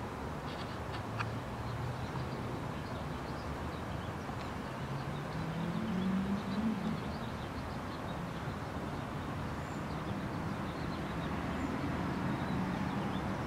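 Outdoor ambience: a steady background rumble with a vehicle passing about six seconds in, its pitch rising then falling, and faint bird chirps. A few small clicks sound about a second in.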